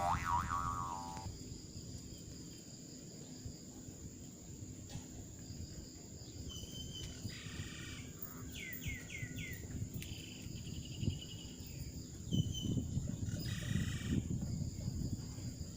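Steady high-pitched insect trilling with several bird calls over it, among them a quick run of four short falling notes. Low rumbling noise grows louder near the end.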